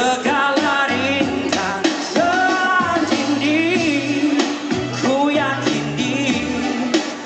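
A male vocalist singing a pop song live through a PA over an amplified band, with a steady bass line and regular drum hits under a wavering melody.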